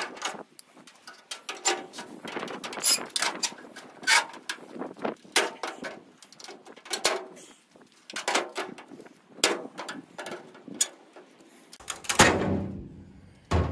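Aviation snips cutting through the plastic slats of a Nissan D21 grille insert: a string of sharp snaps and cracks, often in quick clusters, as the pieces break away. A louder knock comes near the end as the grille is set down on the hood.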